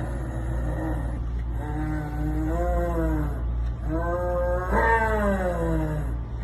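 Domestic cat yowling: two long drawn-out meows, the second falling in pitch toward its end.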